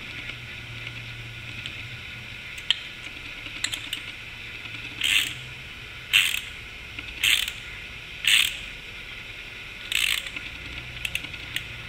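Ratchet wrench clicking in five short runs about a second apart, from a few faint clicks early on, as a steel spin nut is turned onto the unthreaded stud of a reproduction nose crest emblem, cutting threads into the stud.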